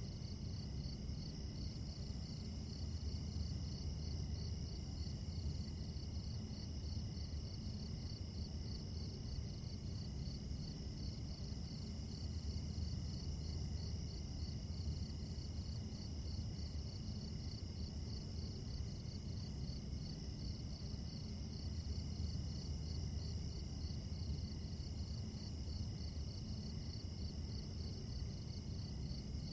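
Crickets chirping in a steady chorus with an even, repeating pulse, over a low background rumble.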